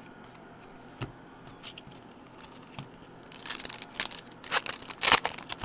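Foil wrapper of a 2010 Bowman Platinum baseball card pack crinkling and tearing as it is ripped open. A few faint clicks come first, then about three and a half seconds in a fast run of crackles and rips.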